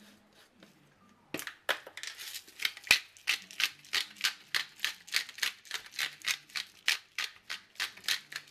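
Pepper mill being twisted to grind pepper: a rapid, even run of grating clicks, about four a second, starting about a second and a half in, with one sharper click near the start of the run.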